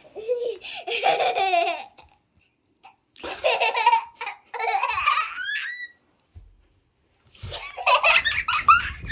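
A young child laughing in bursts during a tickling game, with a high rising squeal about five and a half seconds in, a short pause, then more laughter near the end.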